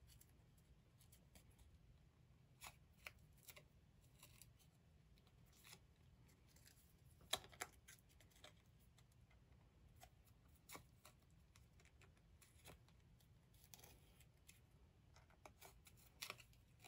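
Near silence with faint, scattered ticks and rustles of a needle and thread being pulled through a small die-cut cardstock piece during hand-stitching.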